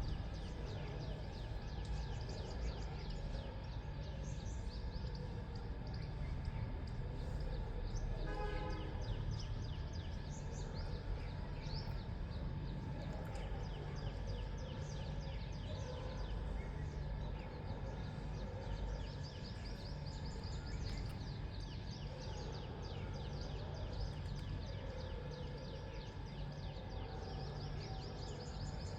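Many small birds chirping and calling in quick, overlapping short notes, over a steady low rumble.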